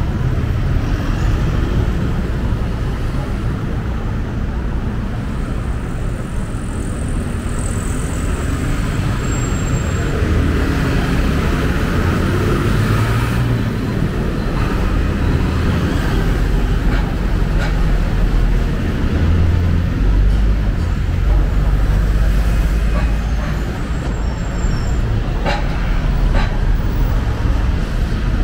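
Street traffic: a steady rumble of cars and other road vehicles passing, swelling for a few seconds past the middle, with a few short clicks near the end.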